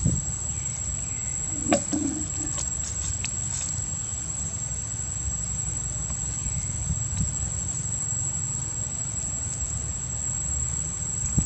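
Steady high-pitched insect drone over a constant low rumble, with a couple of faint clicks about two seconds in.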